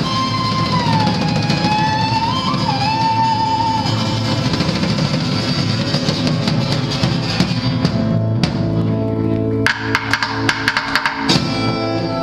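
Acoustic band playing live, with guitar and drums. A long high note is held and slides down over the first few seconds, then a string of sharp strums and drum hits follows near the end: the closing bars of the song.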